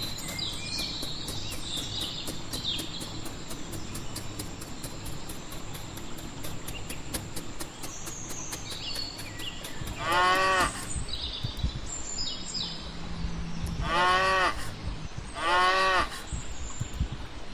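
Cow mooing three times: one call about ten seconds in, then two more close together near the end.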